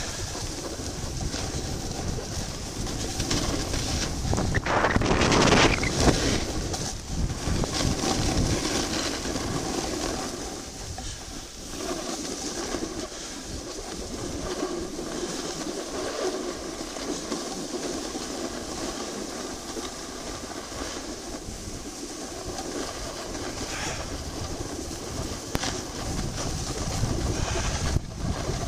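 Wind rushing over the microphone of a camera carried at speed down a groomed ski run, with edges sliding and scraping on the packed snow; loudest about five seconds in.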